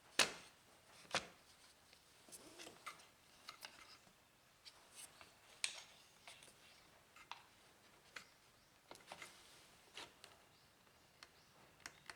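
Scattered light clicks and taps of small objects being handled on a workbench, with a sharper knock right at the start and another about a second in.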